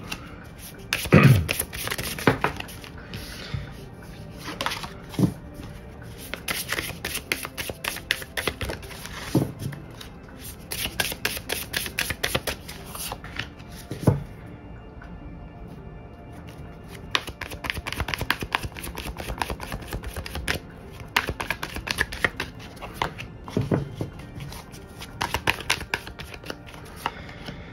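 Tarot cards being shuffled by hand: a run of quick papery rustles and clicks, pausing briefly about halfway through.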